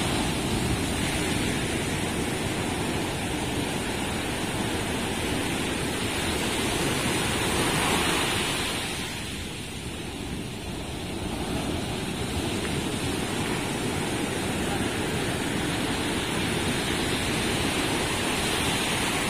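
Ocean surf breaking on the shore, a steady rushing wash of waves that swells about eight seconds in, eases for a moment, then builds again.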